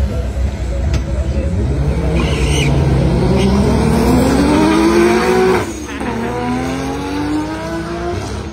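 Proton Coupe and a second car launching off a drag strip start line and accelerating hard. The engine pitch climbs steadily, drops sharply at an upshift about five and a half seconds in, then climbs again as the cars pull away.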